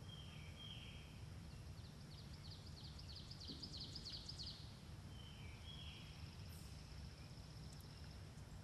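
Faint woodland birdsong over a low, steady rumble: a short pair of slurred notes near the start and again about five seconds in, and a quick run of rapid high chips in the middle that grows louder before stopping.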